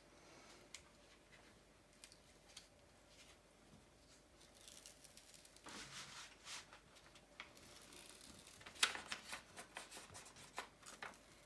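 Protective paper being peeled back from the sticky adhesive surface of a diamond-painting canvas: faint rustling and crackling of paper, with a sharp tick about nine seconds in and a run of small crackles after it.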